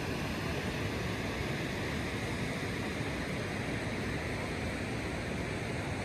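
River water rushing steadily, a constant even noise with no breaks.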